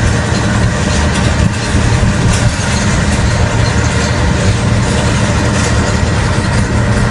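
Heavy diesel piling machinery running, a steady low engine drone, as the rig drives a steel pipe casing into the ground.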